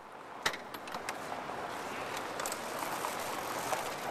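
City street ambience fading in: a steady wash of traffic noise, with a sharp clack about half a second in and a few lighter knocks.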